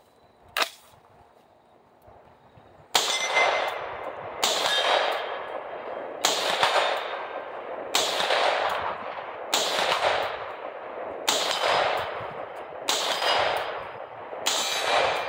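Palmetto State Armory PA-10 .308 semi-automatic rifle firing eight shots at a steady pace, about one every second and a half, starting about three seconds in. Each shot is followed by a long ringing tail from steel targets being hit. A single sharp click sounds about half a second in.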